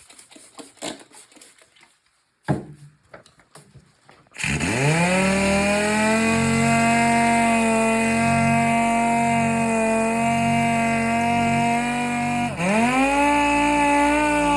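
A few soft handling knocks, then a 6-inch sander spins up about four seconds in and runs at a steady whine, wet-sanding the oxidized polycarbonate of a headlight lens with 600-grit paper. Near the end its speed drops sharply and it spins back up.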